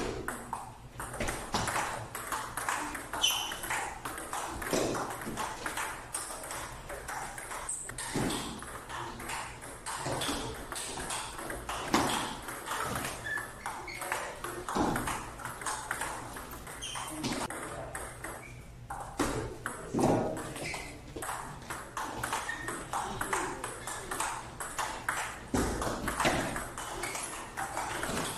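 Table tennis ball clicking off rubber paddles and bouncing on the table in continuous rallies, a quick, steady stream of sharp clicks.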